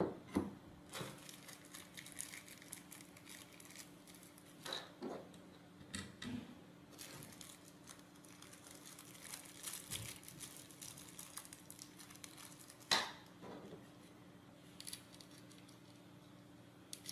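Scattered light clicks, clinks and short rustles of small metal bolts and spacer standoffs being handled and screwed by hand into a robot car chassis plate, the sharpest click about 13 seconds in. A faint steady hum sits underneath.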